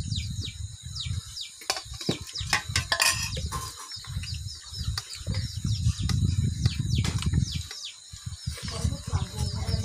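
Hands mixing rice on steel plates, with a few sharp clinks of the metal dishes and a low rumble that comes and goes. Behind it, chicks peep without pause in many short, high, falling chirps.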